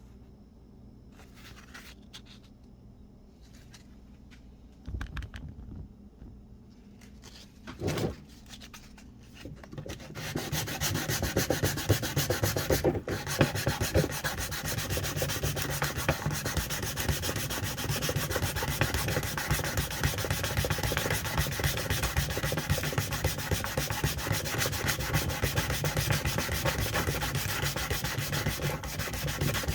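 Sanding on a vintage hand brace during restoration: a few faint clicks and two short knocks, then from about ten seconds in a continuous, fast scraping of abrasive rubbing.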